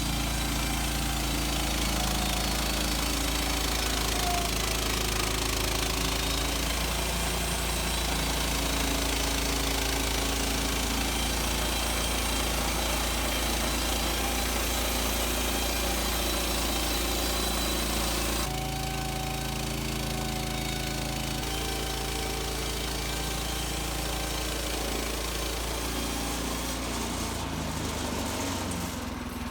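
Gas engine of a Woodland Mills HM130 Max portable bandsaw mill running steadily under load while the band blade saws through a spruce log. About two-thirds of the way through the sound eases and turns less hissy, and near the end the engine note drops.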